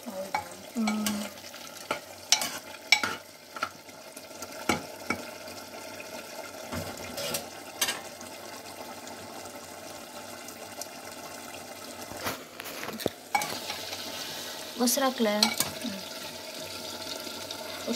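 Chicken curry simmering and sizzling in a pan in the water the chicken has released, being boiled down, while a spoon stirs and knocks against the pan many times.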